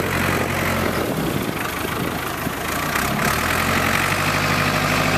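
Ford 555C backhoe's four-cylinder diesel engine running. Its note wavers from about a second in to about three and a half seconds in, then settles back to a steady idle.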